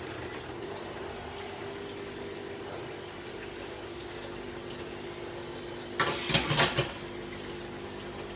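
Water running steadily in a kitchen, coming in at the start, with a louder burst of noise lasting under a second about six seconds in.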